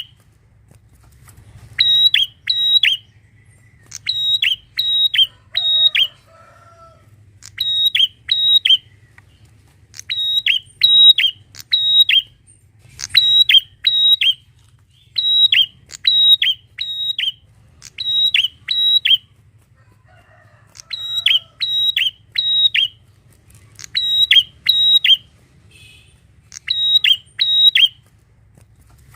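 Prinia (prenjak) singing: loud, sharp, high chip notes in quick runs of two to four, repeated every second or two, over a faint low steady hum.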